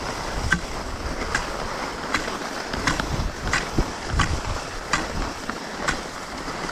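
Skis running over snow at speed, a steady rushing hiss with wind buffeting the chest-mounted microphone. Short sharp scrapes come over and over, a little more than one a second.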